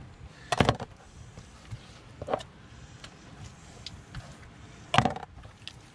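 Fillet knife and gloved hand knocking and tapping on a plastic cutting board while a redfish fillet is trimmed: a few sharp knocks, the loudest about five seconds in, with faint ticks between.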